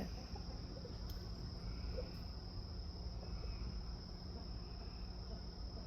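Crickets trilling in a steady, unbroken chorus at one high pitch, with a faint low rumble underneath.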